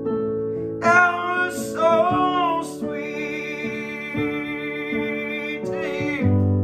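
An acoustic guitar song with a sung melody over plucked chords, holding one long note in the middle.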